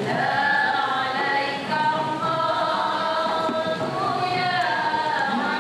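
A group of women singing a nasyid, voices together in long held notes that glide from one pitch to the next.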